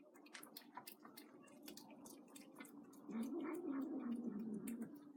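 A cat eating with small chewing clicks throughout, and letting out one long, low, wavering meow through its food about three seconds in, lasting nearly two seconds.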